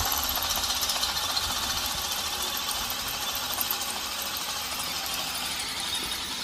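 Handheld electric drill running steadily under load, its bit boring into the steel frame of a York rake.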